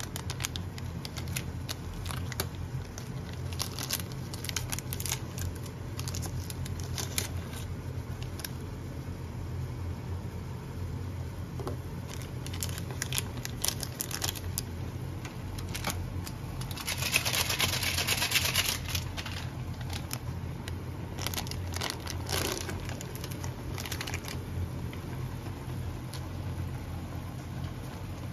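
Plastic instant-ramen seasoning sachets crinkling and being torn open, their contents emptied into the pot, with scattered sharp crackles and a louder stretch of rustling about 17 seconds in. A steady low hum runs underneath.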